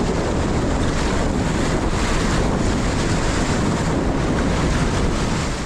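River water rushing around a raft, with wind buffeting the microphone in a steady, heavy rumble.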